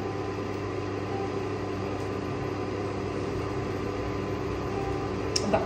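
Steady mechanical hum with a few constant tones, and a brief click near the end.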